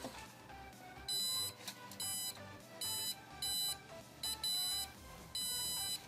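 Small piezo buzzer of an Arduino proximity alarm beeping: about seven short, high-pitched beeps of uneven length at uneven intervals. Each beep is the alarm going off as a hand comes within about 5 cm of the HC-SR04 ultrasonic distance sensor.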